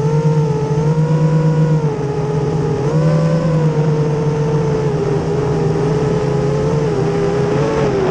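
Brushless motors and propellers of a 240 mm FPV racing quadcopter (Racerstar BR2205 2300KV) whining, the pitch rising and falling with the throttle, over a steady low hum that drops out briefly about two seconds in.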